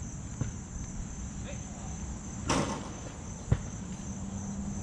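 Steady high buzz of crickets and other insects, with a brief rushing whoosh about halfway through and a sharp click a second later.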